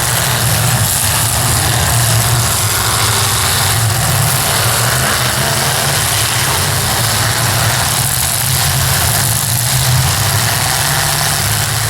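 Demolition derby car engines running, a steady low drone with no crashes.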